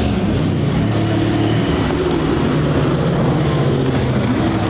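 Mercedes-AMG GT R Pro's twin-turbo V8 with an Fi exhaust running at low revs as the car creeps up to the drag start line. It is a steady, loud engine drone whose pitch shifts a little.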